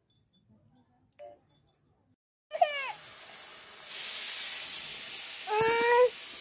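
After near silence, tomatoes sizzle in a hot wok. The sizzle starts abruptly about two and a half seconds in and grows louder a second later. Over it a cat meows three times, short downward-gliding calls.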